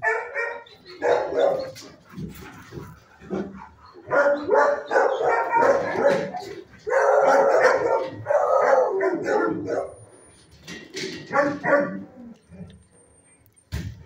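Shelter dogs barking in runs: a burst of barks at the start, a long stretch of steady barking from about four to ten seconds in, and a few more barks near the end.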